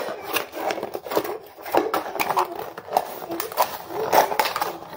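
Cardboard vacuum packaging being handled and pulled apart: irregular scraping, crinkling and clicking. Brief wavering vocal sounds come and go behind it.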